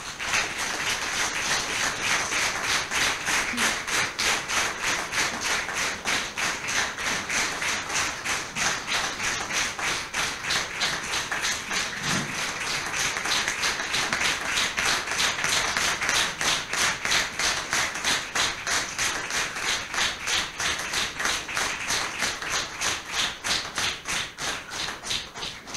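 Audience applauding, the claps falling together in a steady rhythmic beat.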